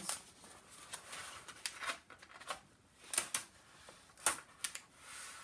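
Crinkling and rustling of a rolled diamond painting canvas and its clear plastic cover sheet being unrolled and pressed flat by hand, with scattered sharp crackles, the loudest about three and four seconds in.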